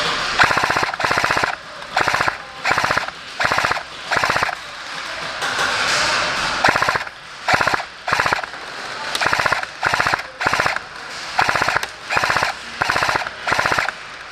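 Airsoft M249 machine-gun replica firing full-auto in about fifteen short bursts, each well under a second, with a lull about five to seven seconds in.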